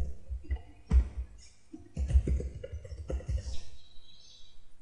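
Typing on a computer keyboard: irregular runs of keystroke clicks and taps as an email address is entered.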